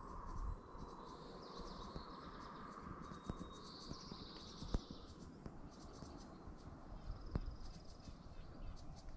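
Quiet ambience with faint, high-pitched trilling calls from small wildlife, coming and going several times, and three soft clicks.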